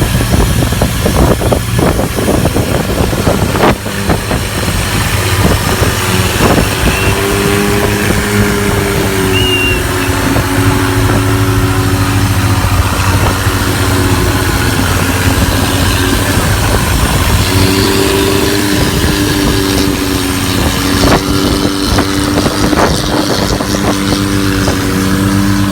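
A motor vehicle's engine running steadily under a loud rushing noise, with a steady engine drone coming up clearly twice, first for a couple of seconds and then again from about two-thirds of the way through.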